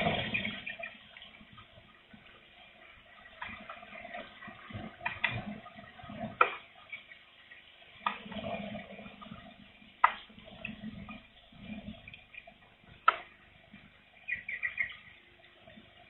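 Light rain with gusts of wind rising and falling, and a few sharp single ticks of drops striking close by, the loudest about six and a half, ten and thirteen seconds in.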